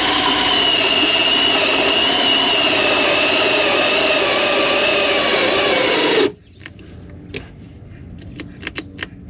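Cordless power tool running steadily at high speed, its whine slowly dropping in pitch, then cutting off suddenly about six seconds in as its battery runs out. Light clicks and handling noise follow.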